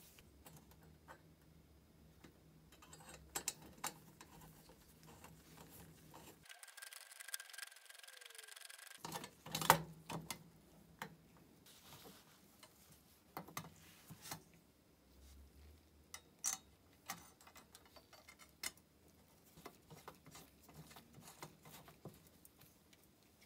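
Gloved hands fitting and screwing brass fittings onto a cast-iron camping stove frame: scattered small metal clicks and taps with light rubbing. The loudest is one sharper knock about ten seconds in.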